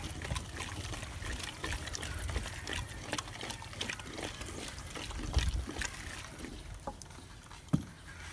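Wooden madhani (hand churner) twirled between the palms in a pot of thick, cooked mustard-greens saag, giving a run of irregular wet clicks and slaps, with one sharper knock near the end. This is the mashing stage that breaks the boiled greens down to a smooth saag.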